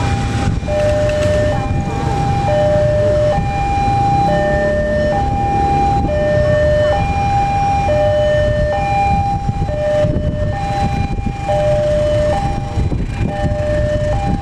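Railway level-crossing warning alarm sounding, a steady two-tone signal that swaps between a higher and a lower pitch about once a second, over a heavy low rumble of passing traffic.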